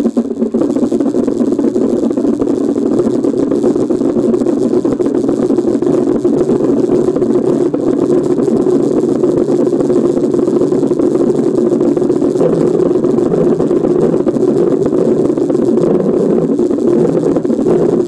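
Electronic keyboard's engine sound effect held on, giving a steady, loud, idling-engine rumble.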